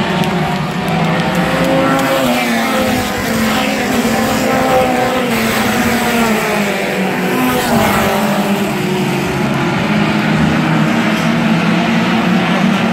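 A field of stadium stock race cars running hard around the oval, a steady engine noise throughout, with several cars passing close by, their engine pitch rising then falling as each one goes past.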